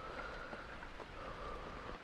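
Steady rain with slow breathing, a soft even hiss with a few faint drop ticks.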